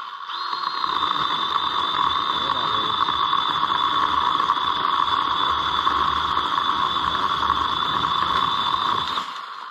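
Cordless electric saw with its motor running steadily while it cuts into an overhead branch. It spins up with a brief rising whine and cuts off suddenly near the end.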